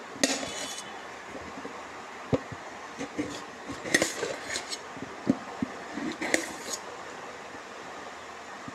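Kitchen utensils and dishes knocking and clinking at an irregular pace while food is handled, with short scraping rustles; the loudest knocks come about a quarter second in and about four seconds in.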